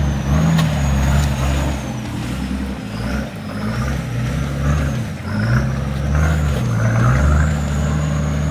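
Four-wheel-drive's engine revving up and down repeatedly under throttle, with a thin high whine wavering above it.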